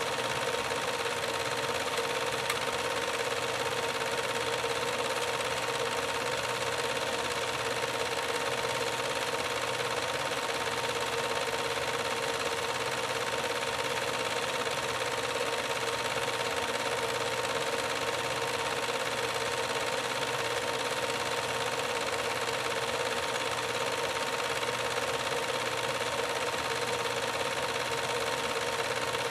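Film projector running: a steady mechanical whirr with a faint constant whine.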